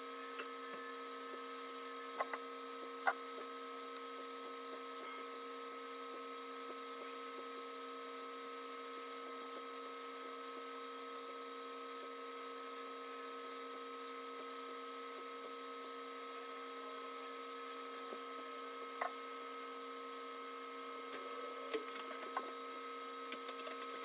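A steady electrical-type hum of several fixed tones, with a few faint taps and scratches of a paintbrush working on canvas, mostly near the start and in the last few seconds.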